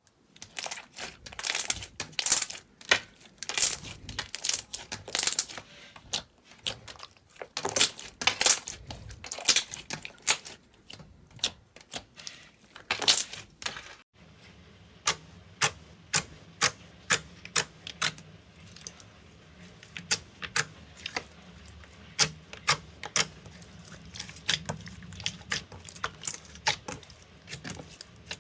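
Slime being squeezed and pressed by hand, giving sharp clicking and popping sounds: dense, irregular crackles at first, then, after a cut about halfway, crisp pops at roughly two or three a second over a low hum.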